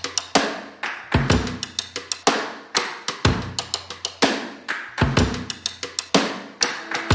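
Background music: an instrumental drum break, a drum kit playing a steady beat of kick drum, snare and cymbals, with no singing.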